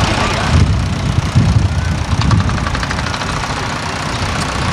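Vintage farm tractor engines running as the tractors drive slowly past, a low steady rumble with a quick, even ticking clatter for a second or so in the middle.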